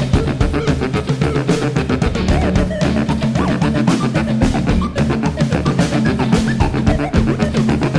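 Instrumental band playing with drum kit, resonator guitar and bass saxophone: busy, steady drumming over a low, sustained saxophone line and plucked guitar.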